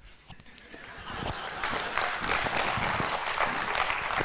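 Audience applauding, the clapping building up about a second in and then holding steady.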